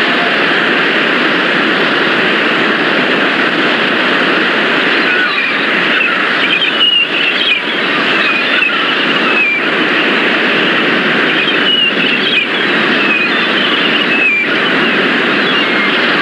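A steady, loud rushing noise with no words. From about five seconds in, faint short high chirps sound over it.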